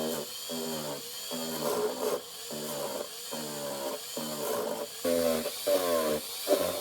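Dremel rotary tool running with a polishing bit, a steady high whine, buffing a metal part with Flitz polish. A lower buzz swells and drops about twice a second as the bit is pressed onto the metal in short passes.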